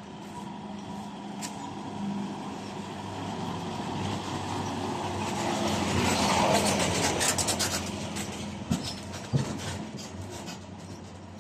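A small light truck drives slowly past at close range. Its engine hum and tyre noise grow louder to a peak about six seconds in, then fade as it moves off. Two short knocks come a little later.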